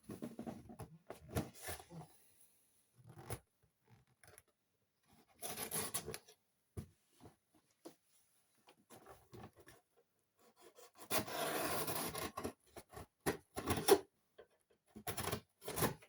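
A cardboard shipping box being opened by hand: cardboard and packing tape scraping and rubbing in irregular bursts, with sharp clicks and knocks between them. The longest scrape comes about eleven seconds in and lasts about a second and a half.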